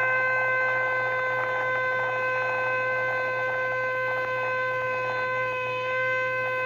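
Shofar sounding one long, steady held note.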